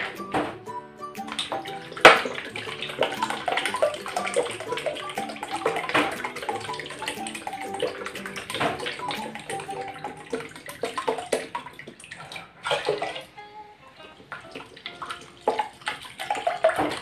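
Soy sauce pouring from a bottle into a small cup and splashing into a stainless steel pot of broth, over background music. A sharp knock about two seconds in is the loudest sound.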